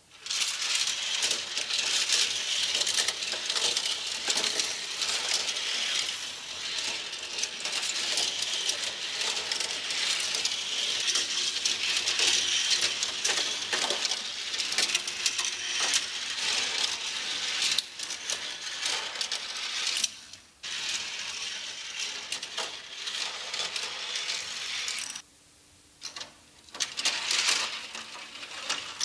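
Die-cast toy cars rolling down the plastic ramps of a toy parking garage playset, a dense stream of small clattering clicks that drops away briefly about 20 seconds in and again around 25 seconds.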